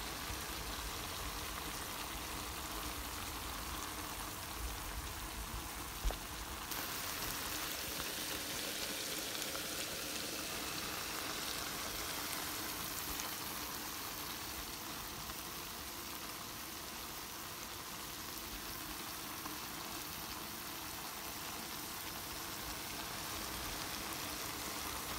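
Chicken breast and vegetables sizzling in a frying pan, a steady hiss that turns brighter about seven seconds in. One sharp click a little before that.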